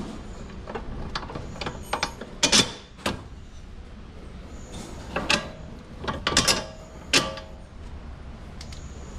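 Bolts and metal suspension parts clinking and knocking as bolts are fitted through the strut and steering knuckle by hand. There are several sharp metallic clanks, a few of which ring briefly.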